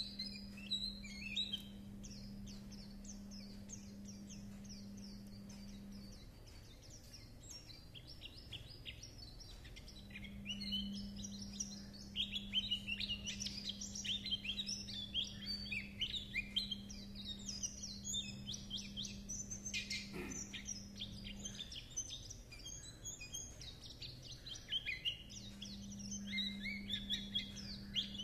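White-eye (khuyên) singing its rapid, high, twittering chatter song in long runs, sparser for a few seconds in the first third. A steady low hum comes and goes underneath.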